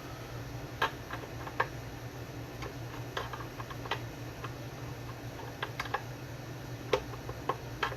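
Light, irregular clicks and taps, about nine in all, of a soldering iron and solder working against the metal lugs of a bass's output jack as they are tinned, over a steady low hum.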